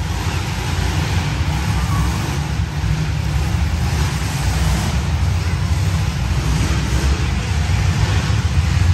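Engines of several demolition-derby cars running together in a large indoor arena: a loud, steady low rumble.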